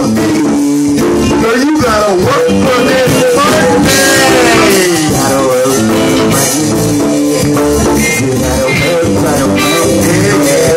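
A live band playing a hip-hop/R&B song, loud and continuous, with guitar lines and a vocalist on a microphone.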